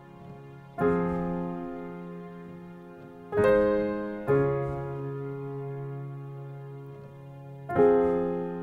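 Background music: slow, soft piano chords, four struck in turn and each left to ring and fade away.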